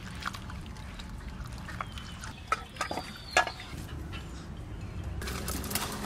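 Scattered wet squishes and clicks of hands mixing spice-coated fish pieces and potato in a pot, then a brighter rustling hiss of dry straw being handled and lit in a clay stove about five seconds in.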